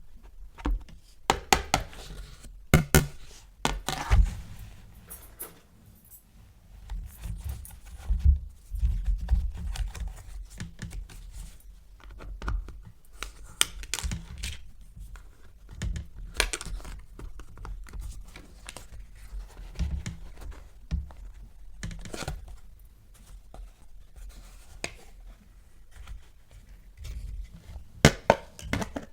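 Hands unboxing toys: irregular clicks, scrapes and knocks of packaging and plastic parts being handled, with occasional dull thuds on a surface.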